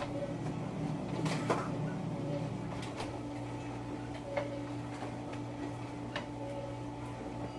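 Light, scattered clicks and knocks of kitchen handling over a steady low hum.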